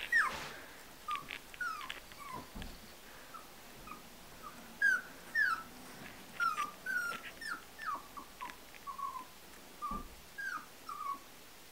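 Young puppies whimpering: a string of about twenty short, high-pitched cries, each sliding down in pitch, coming every half second or so.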